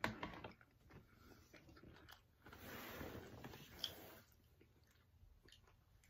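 Faint chewing of a Buffalo-style cauliflower wing, loudest for a second or two around the middle, with a small sharp click about four seconds in.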